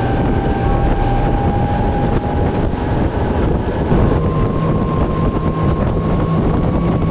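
Vision Marine Bruce 22 boat with its 180 hp E-Motion electric outboard running flat out: a loud, steady rush of wind on the microphone and spraying water. Over it sits a thin, steady whine from the electric drive that steps up in pitch about four seconds in.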